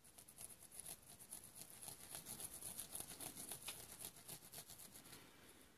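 Green Scotch-Brite pad scrubbing the rubber seal end of an evaporative cooler float valve, faint quick rubbing strokes that are loudest around the middle. The scrubbing takes calcium buildup and pitting off the valve's rubber sealing face.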